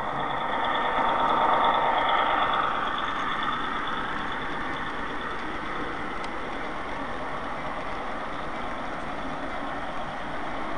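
Model train running close past: a diesel locomotive followed by freight cars, with a steady mechanical running and rolling noise that is loudest in the first few seconds as the locomotive goes by, then evens out as the cars pass.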